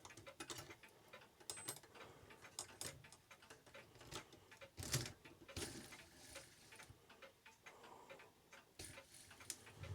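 Ingraham clock movement's mainspring being let down by hand: faint, irregular small metallic clicks from the movement as the spring unwinds, one louder click about halfway through.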